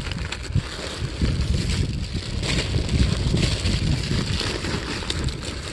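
Plastic bags crinkling and rustling as they are handled and stuffed into a reusable tote bag, over wind buffeting the microphone with a steady low rumble.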